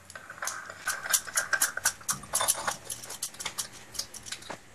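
Stainless-steel sev press (bhujiya maker) being screwed shut over its dough-filled barrel: a quick, irregular run of small metallic clicks and scrapes from the steel lid and threads.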